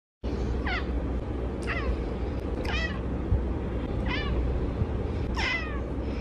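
Domestic cat meowing five times, short high calls about a second apart, each falling sharply in pitch. A steady low hum runs underneath.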